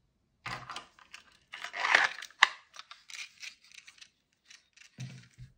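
Knife blade scraping into a Kydex sheath and locking in with one sharp snap about two and a half seconds in. Light clicking and rattling follows as the sheath's ball chain and fittings are handled, then a few dull knocks near the end.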